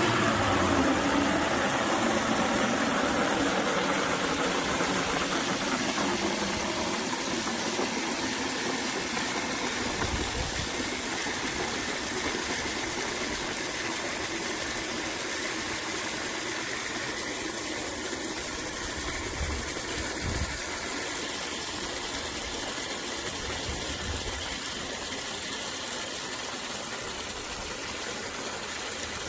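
Water from a garden hose pouring through a flow meter into a bucket: a steady rush that starts abruptly and slowly grows quieter as the bucket fills.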